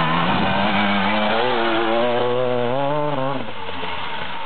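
Enduro dirt bike engine revving under load, its pitch rising and falling with the throttle, then dropping off and getting quieter about three and a half seconds in as the bike moves away.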